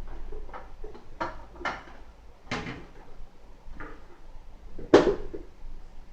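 Microwave door opened and a bowl taken out: a series of separate clicks and knocks, with the loudest knock about five seconds in.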